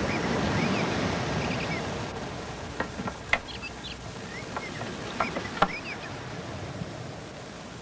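Rustling from a cat's fur brushing against the camera's microphone, swelling in the first couple of seconds and then easing. A few sharp clicks and faint high chirps come in the second half.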